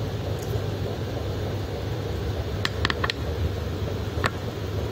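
Steady low background rumble with an even hiss, and a quick run of faint clicks about two and a half seconds in, with one more click about four seconds in.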